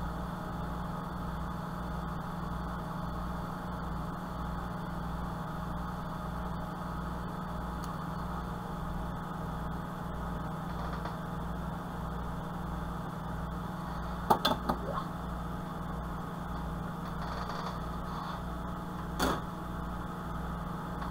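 A steady low machine hum with a slow regular pulse, a little under twice a second, and a few short taps or clicks about fourteen seconds in and again about five seconds later.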